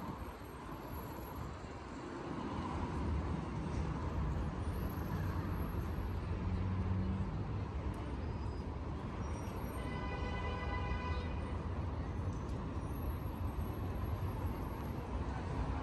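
Steady city street traffic: a continuous low rumble of passing cars and buses. About ten seconds in, a short, steady pitched tone sounds for a little over a second.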